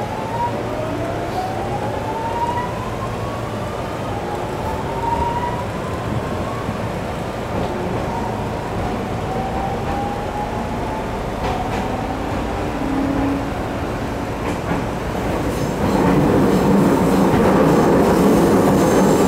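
JR 209 series 3100-subseries EMU's GTO-thyristor VVVF inverter and MT68 traction motors, heard from inside the car as the train accelerates: several whines one after another, each climbing in pitch. Near the end the rolling noise of the wheels on the rails grows louder.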